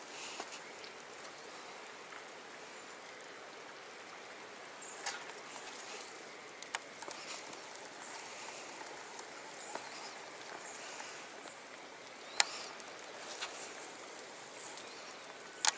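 Steady hiss of running water in a rocky gorge, with a few sharp clicks over it, the loudest about twelve seconds in.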